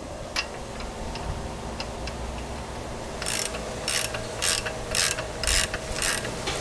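Ratchet wrench tightening the propeller nut on an outboard's prop shaft: a few light clicks, then, about halfway through, six short ratcheting strokes about two a second.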